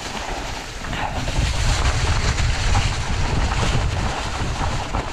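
Wind buffeting the microphone over the rumble of mountain-bike tyres rolling down a wet, leaf-covered, rooty trail. It is a steady, noisy rumble that gets a little louder after the first second or so.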